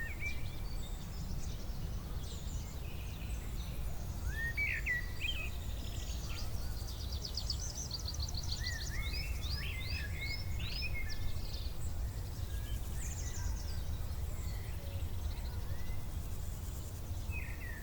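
Summer field-and-forest ambience: several birds chirping and singing in short rising calls, with a fast trill of rapidly repeated notes about seven to eight seconds in, over a steady low rumble.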